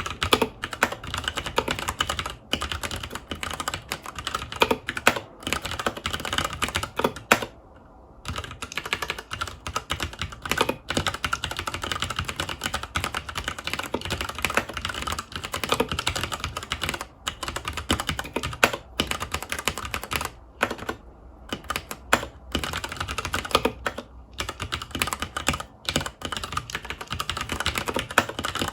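Typing on a FILCO Majestouch 2 tenkeyless mechanical keyboard with Cherry MX Brown tactile switches: a fast, continuous clatter of keystrokes, with short pauses about eight seconds in and again past twenty seconds.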